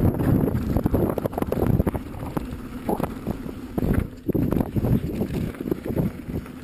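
Carbon Pivot Switchblade full-suspension mountain bike ridden over a rough trail: tyres rumbling on dirt with constant rattling and quick knocks from the bike, and wind buffeting the microphone.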